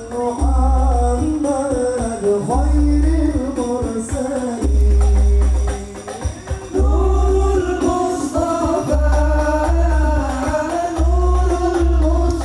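Music with singing played loud through a big Indonesian 'horeg' sound system, an 8x8 line array backed by twenty subwoofers, during a sound check. The deep sub-bass comes in long held notes of one to two seconds each, with a gliding melody line above.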